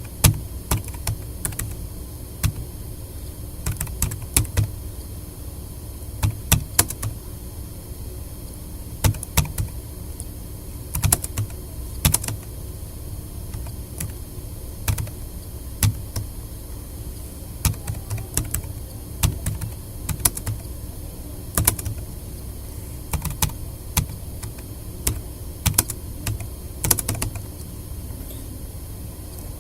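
Keys being typed on a tablet PC's keyboard: irregular clicks, sometimes a few in quick succession, then short pauses, as in typing practice. A steady low hum runs underneath.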